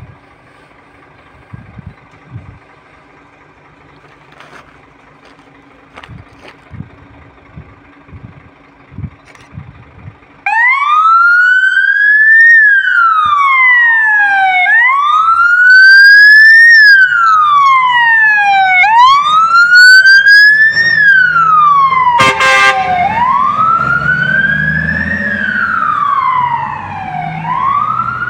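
Scania P450 XT fire engine's diesel idling with a few knocks, then about ten seconds in its siren starts a slow wail, rising and falling about every four seconds. Near the middle of the wail a short blast of the air horns cuts in, with the engine rumbling underneath as the truck moves off.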